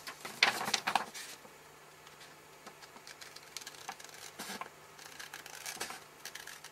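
Scissors cutting through a paper mask, with the paper rustling as it is handled; the loudest snips and rustles come in the first second, followed by small scattered clicks and scrapes of the blades and paper.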